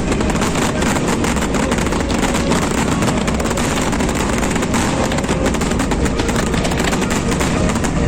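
Fireworks crackling and bursting in a dense, continuous barrage, a steady wash of rapid pops with a low rumble beneath.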